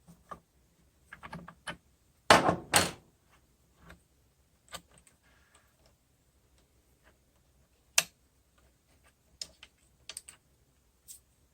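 Scattered clicks and knocks of small parts being handled, with two louder clattering bursts a little over two seconds in and a single sharp click about eight seconds in.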